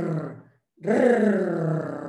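A woman's voice making the rolled Spanish R trill, 'rrrr', held long twice, the second starting about a second in, each with a slightly falling pitch. It is the strong R sound of rosa and perro, which she likens to the noise motors make.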